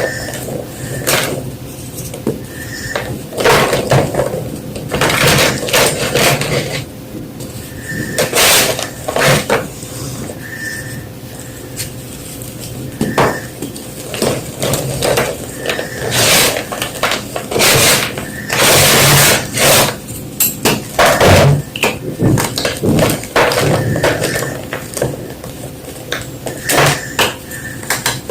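A block of white gym chalk being crunched and crushed: irregular dry crunches and crackles with softer crumbling between them, the loudest and longest in the middle.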